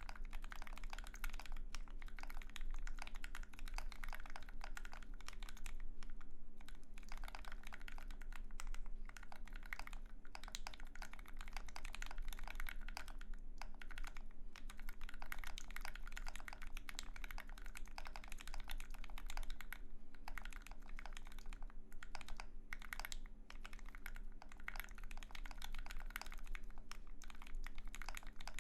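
Continuous typing on an Austere Alice-layout keyboard with lubed, filmed Alpaca linear switches in an aluminium plate and JTK Tripleshot keycaps: a dense, fast run of keystroke clacks broken by a few brief pauses. A faint steady hum sits underneath.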